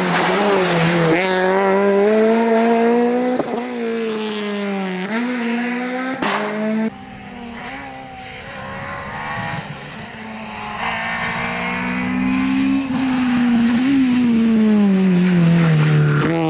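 Peugeot 208 VTi rally car's engine revving hard, its pitch climbing and dropping again and again through gear changes and braking at racing speed. There is a sharp crack about six seconds in, and the sound changes abruptly a second later, when the shot cuts to the car further along the stage.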